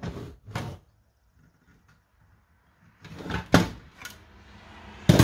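Hand wire strippers clicking twice as a thin wire's end is stripped. After a pause come handling noises and a couple of knocks, and near the end one loud clunk as the metal strippers are set down on the table.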